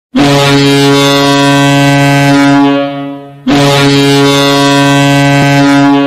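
Ice hockey arena goal horn sounding two long, loud, deep blasts of about three seconds each, the second starting as soon as the first has faded.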